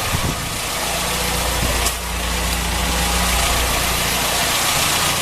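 Ford Fiesta 1.0 Endura engine idling steadily while mains water is flushed through its cooling system, with a steady rush of water draining out.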